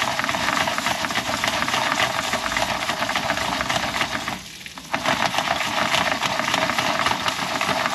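A Jiffy Pop foil pan being shaken rapidly over a portable gas stove burner: continuous fast rattling and scraping of the pan on the grate, with the kernels and oil sizzling inside. The shaking stops for about half a second midway.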